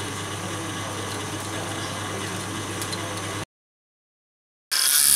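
An electric workshop machine running with a steady hum and a constant low tone. It cuts off abruptly to silence for about a second, and near the end a louder, hissier machine sound starts.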